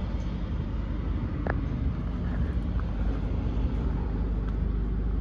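International 4300's DT466 inline-six turbo diesel idling steadily as a low rumble, with one faint click about a second and a half in.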